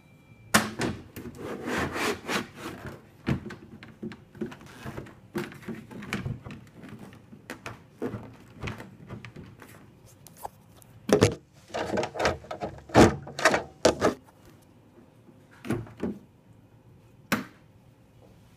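Parts of a Nuova Simonelli Oscar espresso machine's top being handled: irregular knocks, clicks and rubbing of plastic. There is a dense run of clatter near the start, another about two thirds of the way in, and two single knocks near the end.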